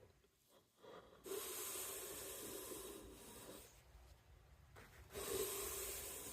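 A wooden mallet handle being cleaned: two long hissing, rubbing passes, the first starting about a second in and lasting over two seconds, the second starting about five seconds in.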